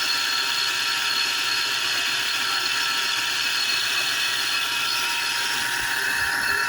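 Steady high whirring hiss with a few fixed whining tones through it: the strange sound from a first-generation 2000 Volvo V70.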